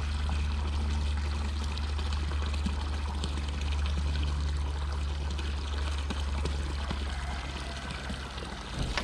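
Steady pouring, trickling water running into the pool as it fills, under a steady low hum.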